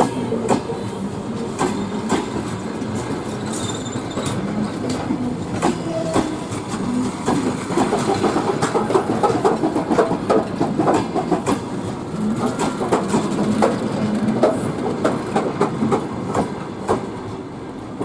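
Passenger coaches of an arriving train rolling past, wheels clacking over rail joints under a steady rumble, with a few brief squeals from the wheels.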